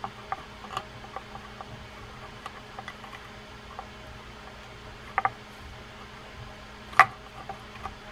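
Small metal clicks and taps of a screwdriver working a crossbar screw into a Penn Peer 209 reel's side plate, with a close pair of ticks a little after five seconds and a sharper click about seven seconds in.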